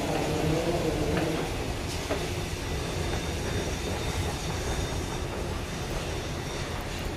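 London Underground station machinery: a steady low mechanical rumble with some clatter, and a wavering tone in the first second and a half.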